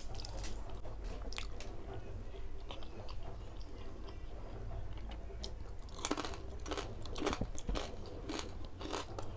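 Close chewing and crunching of crispy lechon kawali, deep-fried pork belly with crackling skin: a run of crisp snaps and crackles, thickest from about six seconds in.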